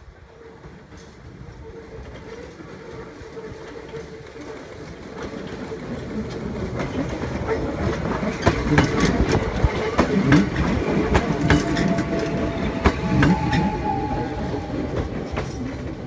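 Hakone Tozan Railway electric train running past on the mountain line. It grows louder over the first half, then clatters loudly close by as its wheels click over the rail joints.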